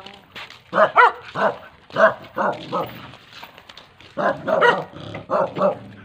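A dog barking repeatedly, in quick runs of several barks with short pauses between runs.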